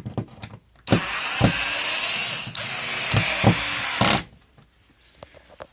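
Hikoki DB3DL2 3.6 V cordless screwdriver run in two goes of about a second and a half each, its clutch ratcheting as it slips against a screw that is too tight for the torque setting.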